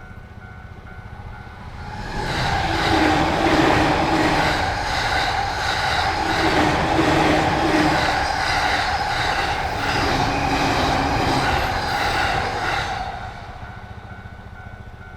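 A train runs over a Japanese railway level crossing for about eleven seconds, its wheels clattering on the rails. Before it arrives and after it has gone, the crossing's warning bell keeps dinging in a rapid steady rhythm.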